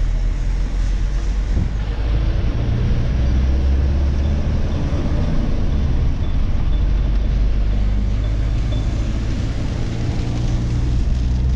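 Steady low engine drone and tyre hiss heard from inside the cab of a moving vehicle on a wet road.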